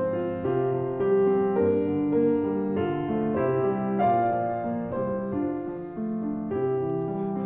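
Grand piano playing the introduction to a classical art song: a flowing succession of struck notes and chords, a new one every few tenths of a second.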